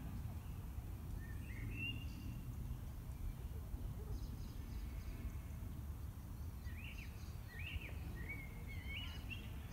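A few short bird chirps, one pair between one and two seconds in and a run of several near the end, over a steady low outdoor rumble.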